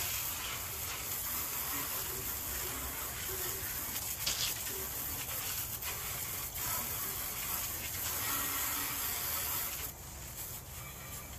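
Water spraying hard onto a go-kart to wash it: a steady hiss that cuts off near the end.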